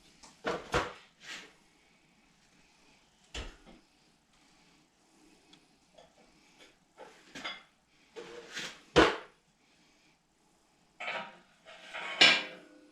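Scattered knocks and clatter of things being handled, picked up and set down, with quiet gaps between. The loudest knocks come about nine seconds in and again near the end.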